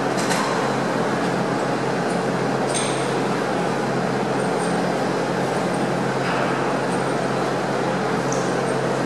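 Steady hum of machinery, with a few faint metallic clinks.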